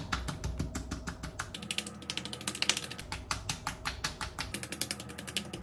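Hands patting the skin of the face: a fast, dense run of light slapping taps, many per second.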